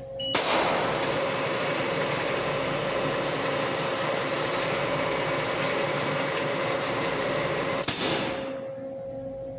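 CNC milling machine spindle switching on with a click, running with a steady rushing noise, then cutting off with another click about eight seconds in and winding down over most of a second, under a steady electrical hum.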